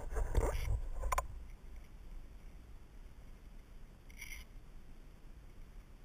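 Mountain bike clattering and knocking over a rough dirt trail, heard through a helmet camera, stopping about a second in. A faint outdoor background follows, with one brief scrape about four seconds in.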